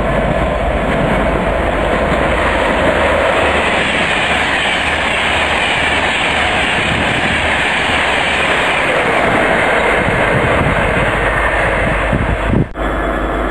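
A passenger express of Mark 4 coaches passing close at speed: a steady rush and rumble of wheels on rails, with clickety-clack over the rail joints. The sound breaks off abruptly near the end.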